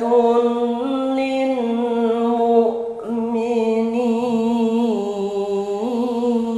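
A man reciting the Quran in melodic tajwid style, drawing out one long ornamented vowel that steps up and down in pitch, with a brief break about three seconds in.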